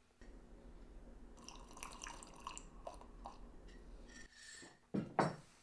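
Hot tea sipped from a mug, faint slurps over a low steady hum, then two short, sharp knocks about five seconds in.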